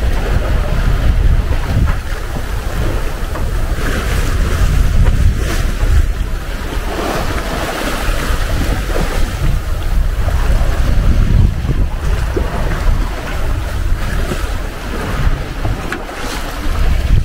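Sea rushing and splashing along the hull of a sailing yacht under sail, with heavy wind noise on the microphone. The rush swells and eases with the waves.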